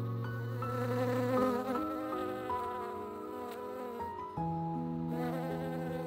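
Honeybee buzzing, over soft music of long held notes that change pitch every few seconds.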